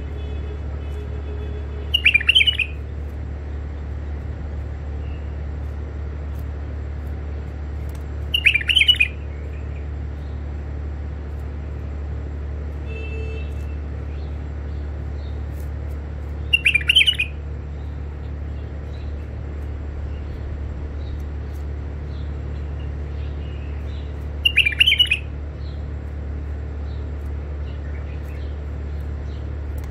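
Caged white-eared bulbul calling: four short bursts of quick chirping notes, spaced about eight seconds apart, over a steady low hum.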